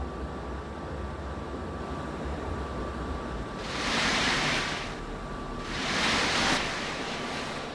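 Mexico City Metro Line 3 train running: a steady low rumble with a thin steady whine, and two loud bursts of hiss, about four and six seconds in.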